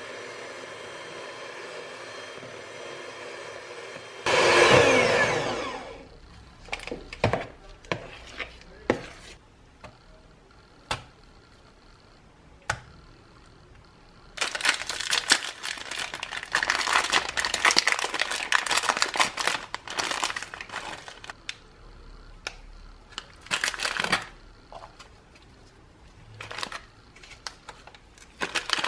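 Electric hand mixer whirring steadily as it beats cheesecake filling, briefly louder about four seconds in, then falling in pitch as it winds down. This is followed by clicks of a spoon and bowl and a long stretch of scraping as the cream filling is spread, with parchment paper and a cookie wrapper crinkling.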